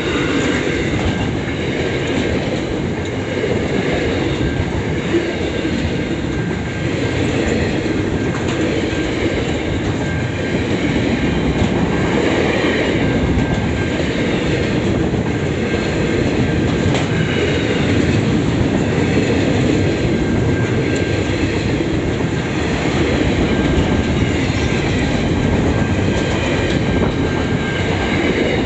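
Freight train box wagons rolling past close by: the steady noise of steel wheels running on the rails, holding an even level throughout.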